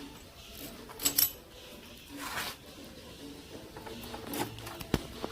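Handling noises from work on the motorcycle: a few sharp clicks and knocks, about a second in and near the end, with a short scraping rustle between them.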